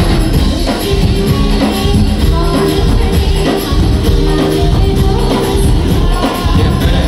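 Loud live garba music through PA speakers: a singer's voice over a band playing a steady dance beat.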